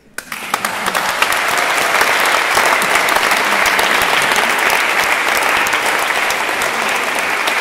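Audience applause that starts suddenly, builds over about a second and then holds steady: many hands clapping at once.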